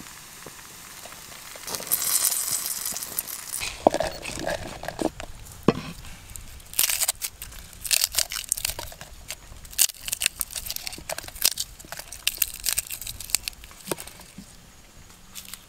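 Hands breaking apart a garlic bulb, its papery skins crackling and crinkling, with cloves and red chilies dropping into a mortar as short clicks and taps.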